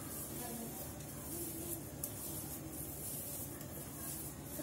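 Faint rubbing and scraping of fingers kneading soft khoya (milk solids) and cocoa powder against a steel plate, over a steady low hum, with a small click about two seconds in.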